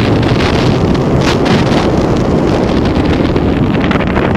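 Strong wind rushing over a rider-worn camera microphone, with the steady rumble of a roller coaster train speeding up a steep hill.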